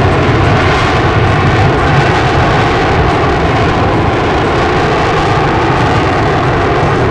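F-35B Lightning II hovering on its lift fan and downturned exhaust nozzle, the engine and lift fan giving a loud, steady jet roar with faint steady tones running through it.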